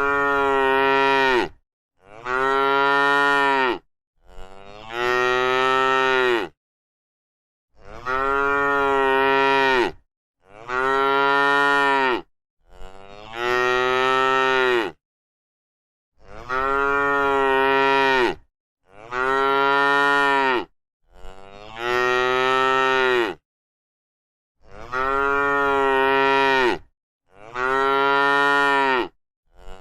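A cow mooing over and over: about a dozen long moos, each lasting about two seconds, with short dead-silent gaps between them.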